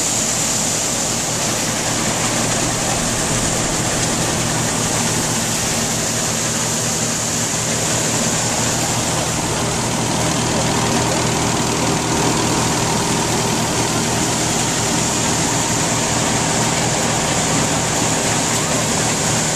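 Farmall tractor engine running steadily, driving an old corn sheller as ears of corn are fed in: an even engine hum under the sheller's steady machinery noise.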